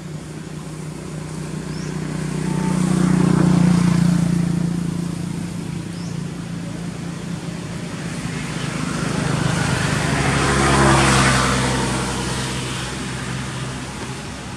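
Motor vehicles passing by, an engine hum with a rushing sound that swells and fades twice, loudest about three seconds in and again near eleven seconds.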